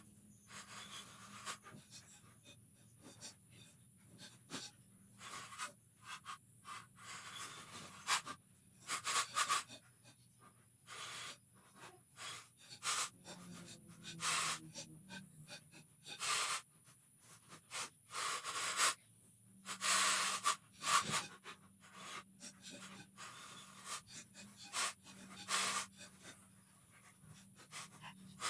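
A person breathing hard in irregular, hissing gasps, with a faint steady low hum underneath.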